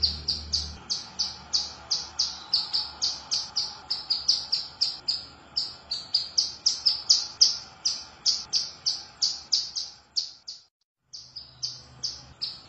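Female ciblek gunung (mountain prinia) giving its calling sound, used to call a male: a rapid, even series of short, high chirps at about three to four a second. It breaks off for a moment about ten and a half seconds in, then resumes.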